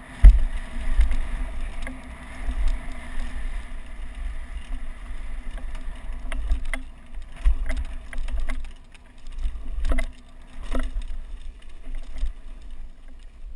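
Handlebar-mounted camera on a downhill mountain bike riding a rough grass trail: an uneven low rumble of wind and jolting on the microphone, with the bike rattling over bumps. A sharp knock comes just after the start, and two more near the end.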